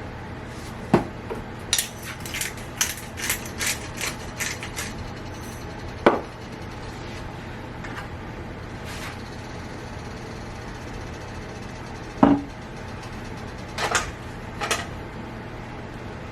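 Kitchen cookware and utensils being handled while eggs cook: a run of light clicks and taps, a few sharper knocks on a hard surface, over a steady low hum.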